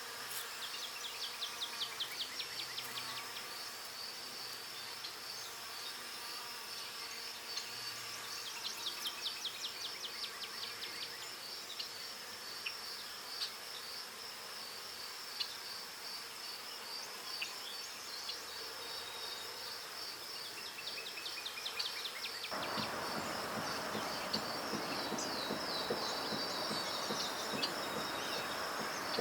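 Insects calling: a steady, high-pitched pulsing trill with repeated runs of rapid ticking. About three quarters of the way in, a steady rushing noise starts abruptly underneath it.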